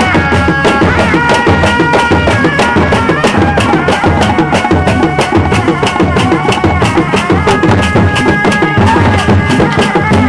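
Live Sundanese reak street music: hand-beaten drums played in a fast, dense rhythm, with a high melody line of long held notes over them.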